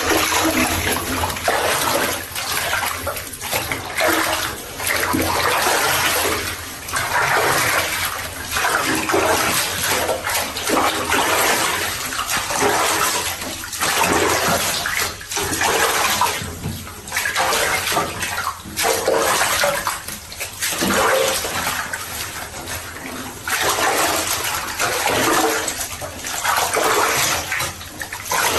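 Bathwater sloshing and splashing as hands scrub a black leopard's soapy coat in a bathtub, coming in uneven swells every second or two.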